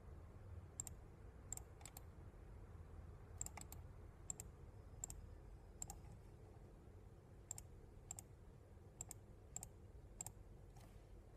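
Computer mouse clicking at irregular intervals, roughly one click a second and some in quick pairs, as points are placed one by one, over faint room tone.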